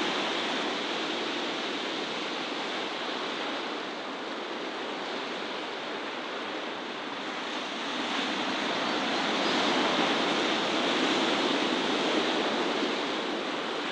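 Steady rushing wash of sea surf, swelling slightly about eight seconds in.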